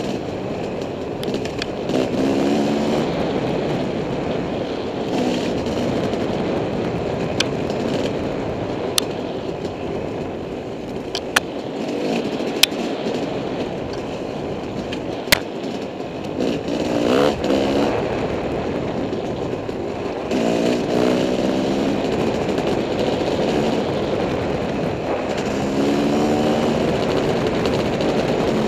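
Dirt bike engine running, revving up and easing off again several times over a steady rushing noise, with about five sharp clicks in the middle stretch.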